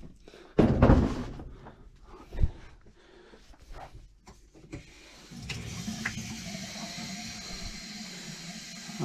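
A heavy thump about half a second in and a lighter knock a couple of seconds later, as gear is handled in a basement laundry room; from about five seconds in a steady low hum with a hiss sets in and keeps on.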